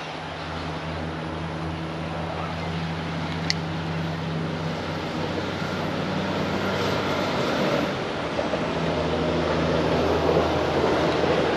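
A steady, low engine drone that grows louder toward the end, with a single sharp click about three and a half seconds in.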